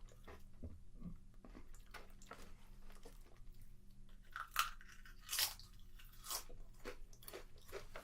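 Close-up crunching and chewing of potato chips, a run of crisp crackles with a few louder bites partway through.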